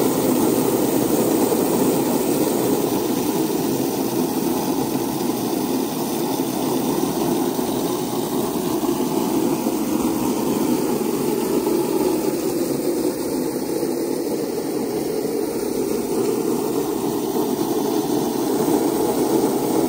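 Steady rushing of water from the spa's wall jets spraying into the raised pool spa as it is being refilled.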